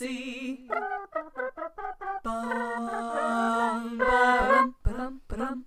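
Multitracked a cappella voices singing a wordless instrumental break between verses. A quick run of short rhythmic notes leads into a held chord of several voices about two seconds in, then short punchy notes resume near the end.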